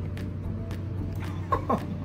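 Background music, with one short cry that falls steeply in pitch about one and a half seconds in.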